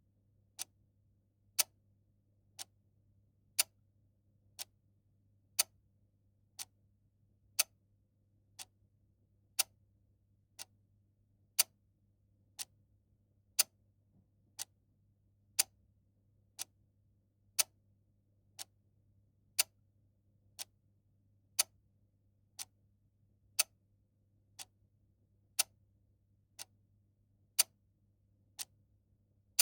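Mechanical clock ticking steadily once a second, with the ticks alternating louder and softer in a tick-tock pattern, over a faint low hum.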